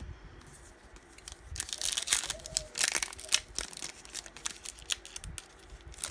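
Foil wrapper of a Topps Finest baseball card pack being torn open and crinkled by hand. A dense run of sharp crackles starts about a second and a half in, then thins to scattered crinkles.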